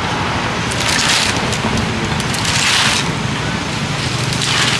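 Street traffic noise: a steady low engine hum, with three swells of rushing hiss from passing vehicles.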